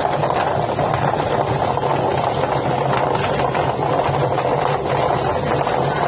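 Drum-type duck feather plucking machine running with a steady, even mechanical hum.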